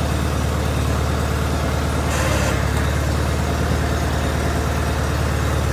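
John Deere 318 garden tractor's two-cylinder Onan engine running steadily. About two seconds in there is a brief hiss and the engine note shifts.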